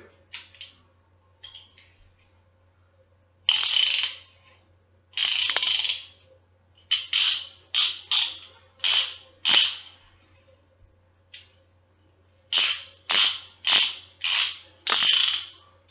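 Mastercraft half-inch drive ratchet with a socket on it, worked back and forth by hand: bursts of rapid pawl clicking, two longer runs and then about a dozen short strokes in two quick groups.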